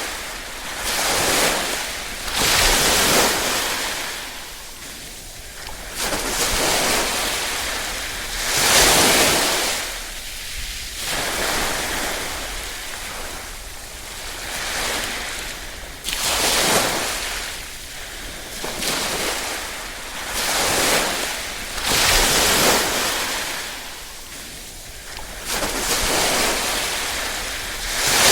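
Small waves lapping on a shore, each swell of surf rising and falling away every two to three seconds.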